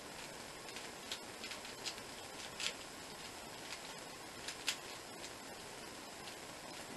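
A 3x3 Rubik's cube turned quickly by hand, its plastic layers clicking at irregular intervals, a dozen or so sharp clicks over steady hiss, the loudest about a third and two thirds of the way through.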